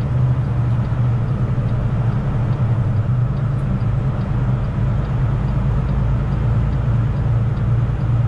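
Semi truck running at highway speed, heard from inside the cab: a steady low diesel drone with road noise.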